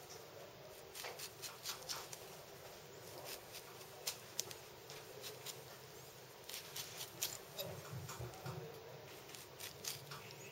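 Pineapple eye remover with a stainless-steel V blade cutting strips of eyes out of a peeled pineapple: faint, irregular crisp clicks and scrapes, coming in short runs.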